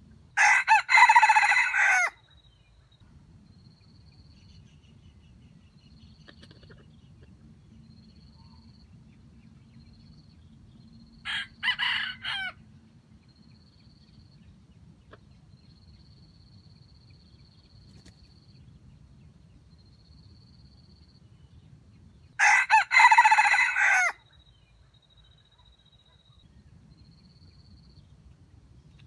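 Red junglefowl rooster crowing: two loud, short crows, one at the start and one about 22 seconds in, with a shorter, fainter crow about 11 seconds in.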